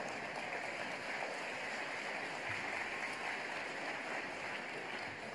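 Steady, even rushing hiss like running water.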